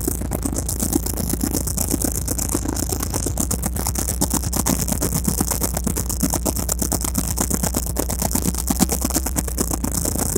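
Boat motor running steadily at low speed, a constant low hum with a dense rattle over it.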